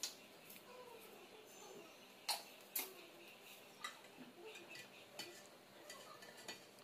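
A handful of light, scattered taps and clicks of kitchen utensils: a cooking spoon knocking against a metal pot as soup is stirred.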